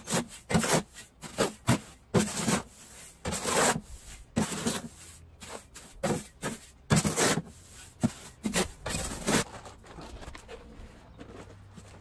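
A shovel scraping and churning through perlite and sand in a metal wheelbarrow, in repeated strokes about twice a second, as the dry mix is stirred together. The strokes stop about nine and a half seconds in.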